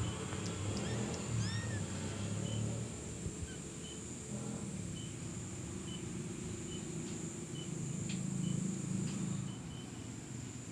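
Newborn kittens giving a few short, high mews in the first couple of seconds as the mother cat licks them, over a low, uneven rumble that swells again near the end.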